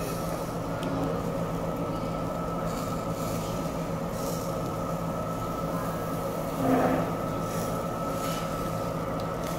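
Steady rumbling hum with a constant tone, from a ventilation fan, over light sizzling of seasoned pork ribs on a charcoal grill. A short louder sound comes about seven seconds in.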